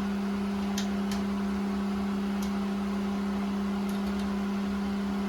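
A steady low hum on one constant pitch, with a few faint light clicks and ticks over it.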